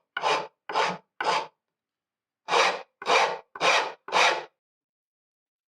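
Hand file rasping across wood in even push strokes, about two a second: three strokes, a short pause, then four more. It is smoothing a chiselled valley where the slope meets the bottom.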